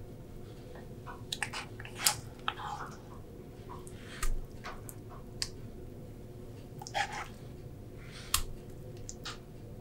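Wooden spoon dishing thick rice porridge into a ceramic bowl: scattered light taps and clicks of the spoon against the bowl with soft wet sounds of the porridge, over a steady low hum.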